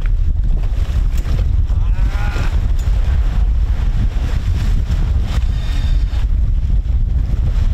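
Strong wind buffeting the microphone, a heavy, fluttering low rumble, over wind and waves around the anchored boat. A short, wavering pitched sound rises and falls about two seconds in.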